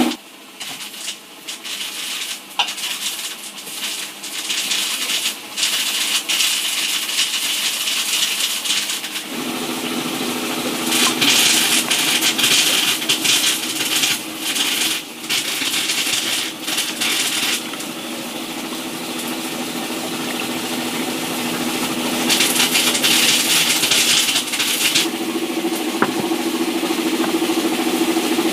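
Cooking sounds: a metal ladle and utensils clinking and scraping against a pot and ceramic bowls, with stretches of hissing as hot broth is poured. A low steady hum runs underneath from about a third of the way in.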